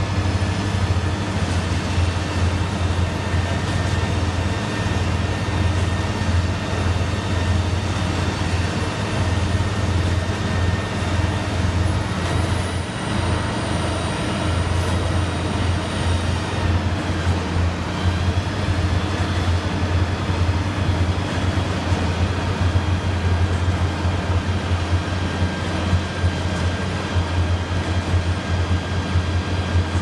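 Steady, unbroken low drone of heavy diesel engines: concrete mixer trucks and concrete boom pumps running continuously during the pour.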